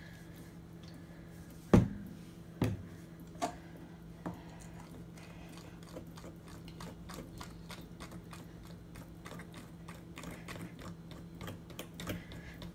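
Metal spoon mixing runny cake batter in a ceramic bowl. A few sharp knocks against the bowl come in the first few seconds, then a steady run of light, quick clicks as the spoon beats the batter.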